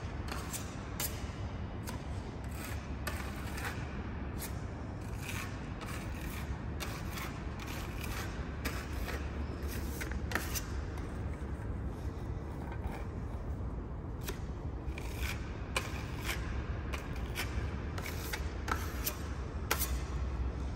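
Hand sanding and scraping on a concrete floor being prepared for epoxy paint: irregular scrapes and sharp clicks over a steady low rumble.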